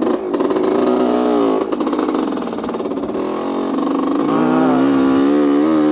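A 1985 Honda CR250R's two-stroke single-cylinder engine under way on a dirt trail, its pitch climbing as it revs up during the first second or so, then climbing again from about four seconds in.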